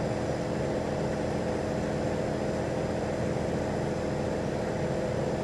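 Outdoor air-conditioning condensing unit running: a steady mechanical hum with constant tones.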